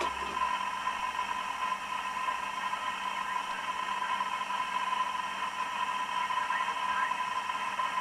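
Steady hiss with a constant high-pitched tone running through it, with no distinct events.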